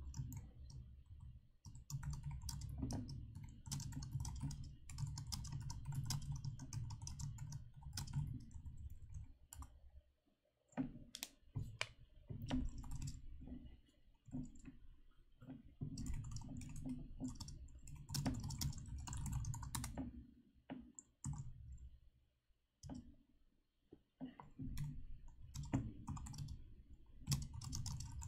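Typing on a computer keyboard: runs of quick keystrokes, each with a soft low thud, broken twice by brief pauses.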